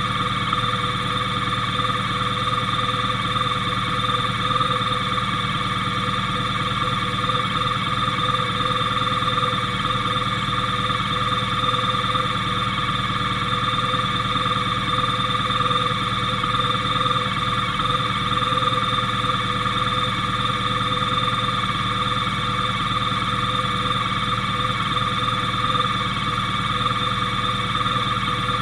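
Motorcycle engine idling steadily while the bike stands still, with a constant high whine over a low hum.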